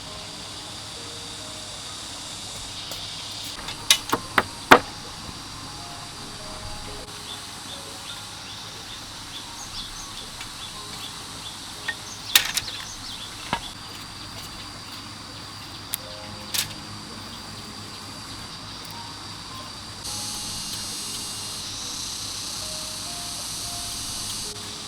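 Soft background music over a steady high insect drone, broken by a few sharp knocks: a quick cluster about four seconds in, more around the middle, and two a little later.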